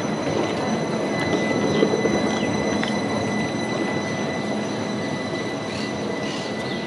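CAF Urbos 3 tram rolling slowly past close by: a steady rumble of wheels on rail, with a thin, high, steady whine held throughout.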